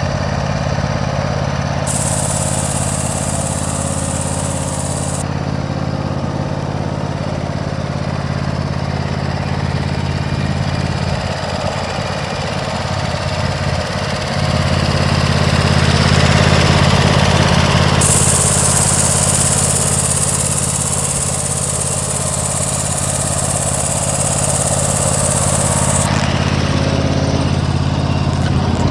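Toro TimeCutter SS4235 zero-turn mower's engine running steadily. It wavers briefly a little under halfway, then runs louder for a few seconds before settling back.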